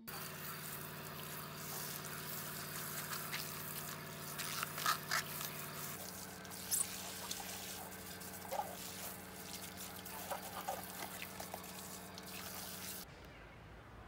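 Water running from a campervan's outdoor shower hose and splashing onto gravel ground, over a steady hum that changes pitch about six seconds in. It all stops shortly before the end.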